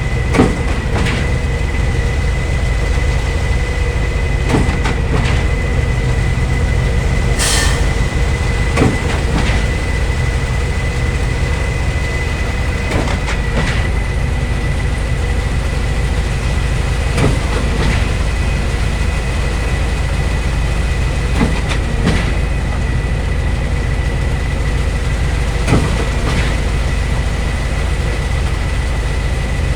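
Heavy diesel construction machinery of a concrete pour, a concrete pump and truck mixer, running steadily with a deep rumble and a steady high whine. A knock comes about every four seconds, and there is a short hiss about seven seconds in.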